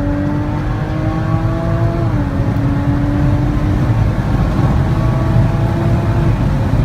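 Jaguar F-Pace's 3.0-litre supercharged V6 under hard acceleration, its note climbing slowly in a high gear. The pitch drops once at an upshift about two seconds in and then climbs again, over a heavy low rumble.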